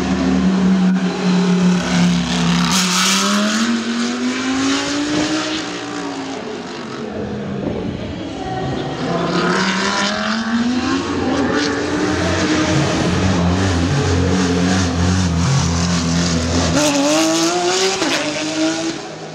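Race car engines at high revs passing along the circuit, one car after another. The engine note rises, falls off and rises again as they drive through the gears, and holds steady and loud for a few seconds before climbing once more near the end.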